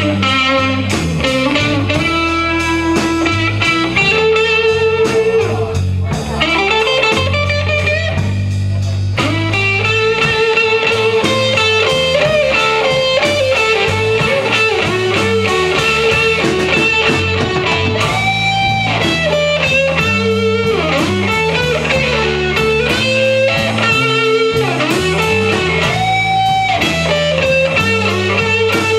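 Live blues band in an instrumental stretch: a semi-hollow electric guitar takes the lead with sustained, bent notes over bass and drums.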